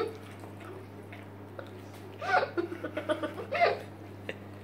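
Girls giggling with their mouths full, a cluster of short bursts of laughter a little past halfway, over a steady low hum.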